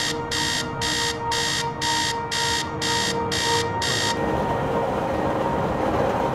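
Electronic alarm clock beeping in a fast even pattern, about two shrill beeps a second, nine in all, then cutting off abruptly about four seconds in. A steady drone continues underneath.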